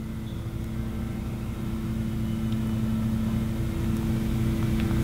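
A steady engine drone: a low held hum over a pulsing rumble, growing slowly louder, with a few faint ticks.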